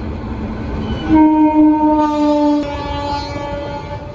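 Indian Railways electric locomotive's horn sounding one long multi-note blast about a second in, over the steady rumble of a passing freight train. Partway through, the horn drops a little in pitch and becomes softer as the locomotive goes by.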